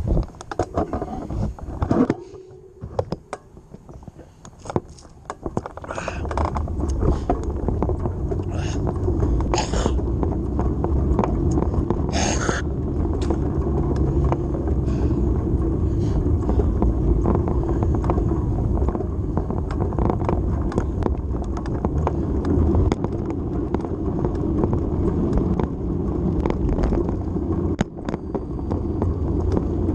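Bicycle riding noise: scattered clicks and rattles for the first few seconds, then a steady rumble of tyres on pavement and wind on the handlebar-mounted microphone as the bike picks up speed. Two sharper clicks come about ten and twelve seconds in.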